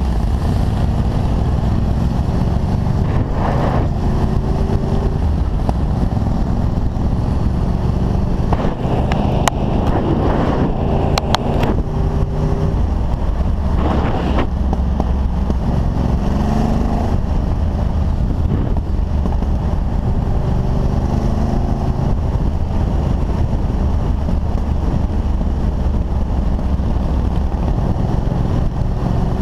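Motorcycle engine running at road speed, heard from on the bike, with wind noise on the microphone; the engine note changes pitch a few times as the speed changes.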